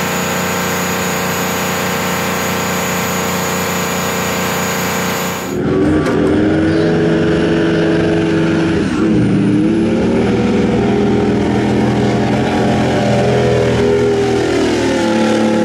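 Detroit Diesel two-stroke V-engine generator set running at a steady speed with a high whine above the engine note; about five and a half seconds in it gives way to a pulling truck's custom V24 Detroit Diesel (two 12V71s joined) under full load, its note dipping briefly a few seconds later, with a faint high whine slowly rising above it.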